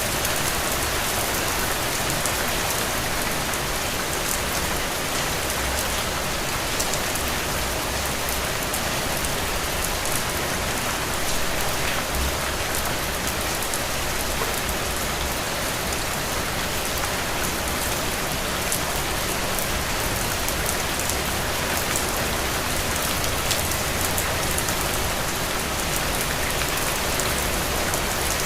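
Steady rain falling on a surface, with a dense even hiss and many fine drops pattering through it.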